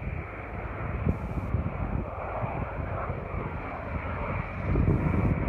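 PAC Cresco topdressing plane's turboprop engine and propeller droning steadily at a distance as the aircraft flies away after takeoff.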